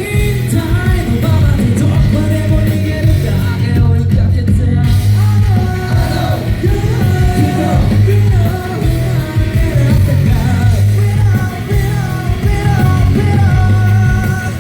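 Loud live pop music: a vocal group singing over a band track with heavy bass. About four seconds in, the high end drops out briefly.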